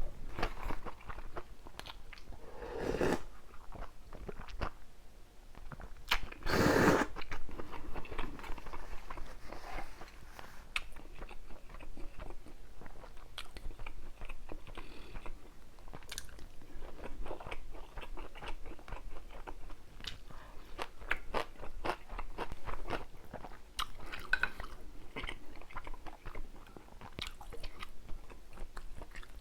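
Close-miked eating: steady chewing and crunching with many small wet clicks, and two louder, longer bursts about three and seven seconds in.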